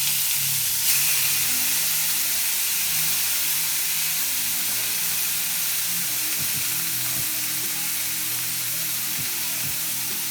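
Chicken pieces frying in hot olive oil in a pan: a loud, steady sizzle that eases off slightly toward the end.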